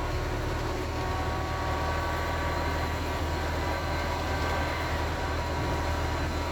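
Wright StreetDeck double-decker bus with a Mercedes-Benz OM934 four-cylinder diesel running steadily: a deep engine drone with road noise and faint high whining tones that come in about a second in.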